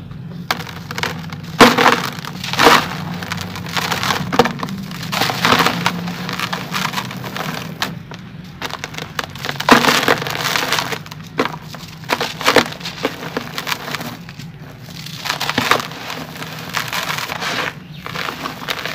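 Dry sand-cement blocks crushed by hand in a plastic tub: irregular, sharp crunches as the blocks crack and crumble, with gritty crumbs and powder falling between them.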